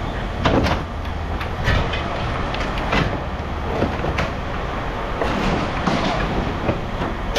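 Scrap metal clanking and knocking as pieces are handled and shifted in a pile, with irregular sharp knocks over a steady low rumble.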